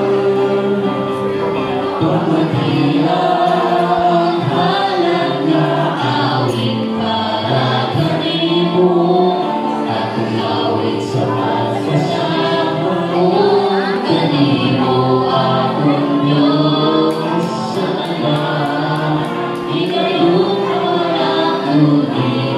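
A mixed group of men and women singing a gospel worship song together into microphones, the voices held in long sustained notes.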